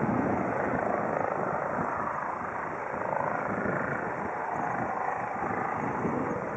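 Eurocopter EC135 rescue helicopter running, a steady rush of twin-turbine noise over a rapid low beat from its rotor.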